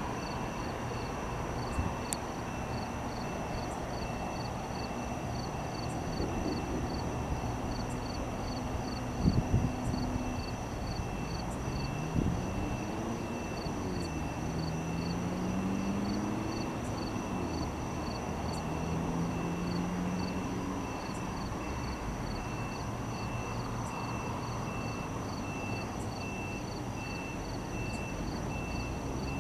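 Night insects, crickets among them, chirping steadily in fast high-pitched pulses over a low rumble. A few short knocks come near the middle, along with some low tones that slide up and down.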